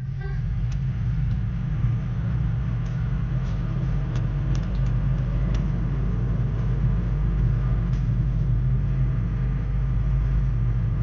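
Steady low rumble of a car driving, with a few faint clicks scattered through it.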